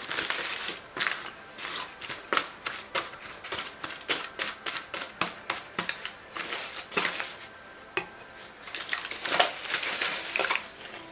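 Aluminium foil crinkling and crackling in quick, irregular clicks as small pieces are folded and pressed.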